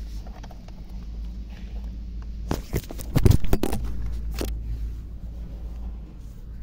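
A mobile phone falling from a hand inside a car and knocking against the interior: a quick run of knocks and clatters starting about two and a half seconds in, loudest a second later, followed by lighter rubbing and handling, over a low steady hum.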